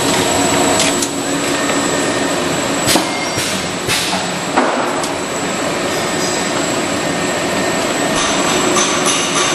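Corrugated plastic pipe production line running: a continuous mechanical clatter and hum from the corrugator and its drive, with a few sharp knocks between about three and four and a half seconds in.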